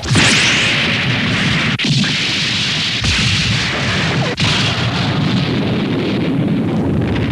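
Sound effects from the original Voltes V anime: a loud, dense explosion-like roar. It breaks off and restarts abruptly about two, three and four and a half seconds in.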